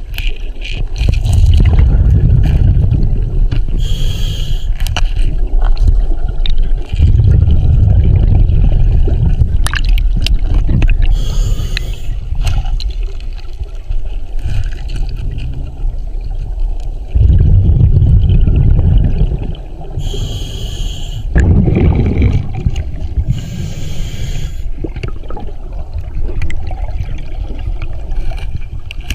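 Scuba diver breathing through a regulator underwater. Short hisses of inhalation alternate with longer, louder rumbling bursts of exhaled bubbles, a breath every several seconds.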